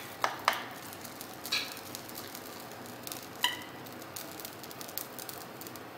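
A spoon clicking and scraping against the nonstick plates of an electric sandwich maker as moong dal filling is spooned onto semolina batter, a few sharp clicks over a faint steady hiss.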